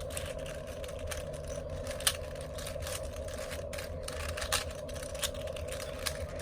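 Scattered short clicks and clacks of a 4x4 Rubik's cube being handled, over a steady background hum; the sharpest click comes about two seconds in.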